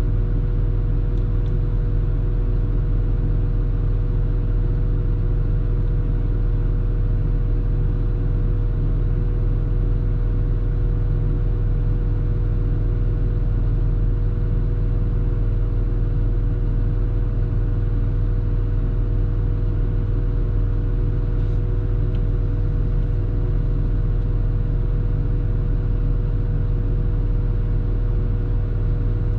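CAT loader's diesel engine running at a steady speed: a constant low drone with a steady higher hum above it.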